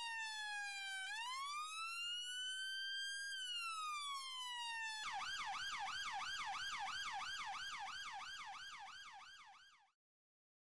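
Electronic police siren in a slow wail, dipping, rising and falling again, then switching about halfway to a fast yelp of about four cycles a second that fades out near the end.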